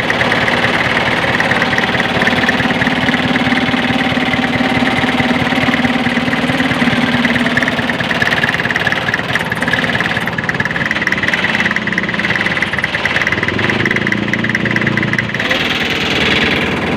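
Jeepney diesel engine idling steadily with a fast, even clatter.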